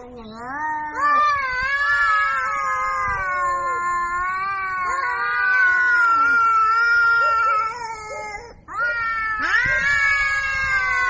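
Cats yowling at each other in a fight standoff: long, drawn-out, wavering howls that break off briefly near the end and then start again with a rising howl.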